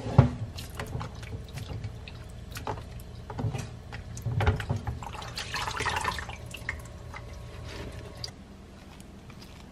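Water sloshing and dripping in a bowl as a hand swishes wild raspberries around to wash them, with many small splashes. About halfway through there is a brief rush of water, and the sound dies down near the end.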